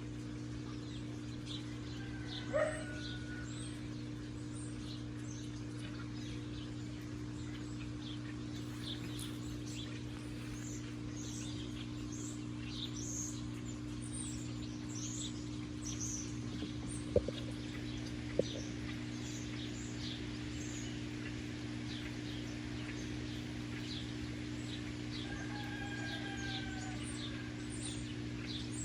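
Many small birds chirping in quick short calls throughout, with a couple of longer calls about two seconds in and near the end, over a steady low hum. Two sharp clicks near the middle.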